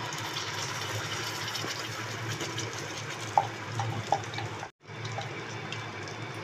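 Ground onion and cashew paste sizzling and crackling in hot oil in a kadhai, a steady frying hiss with a few sharper pops. The sound cuts out briefly a little under five seconds in.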